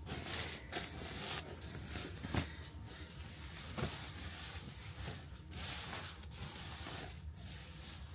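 Fabric rustling and soft handling knocks as a sleeping bag, pillow and blankets are spread out, irregular and fairly quiet, over a faint steady low hum.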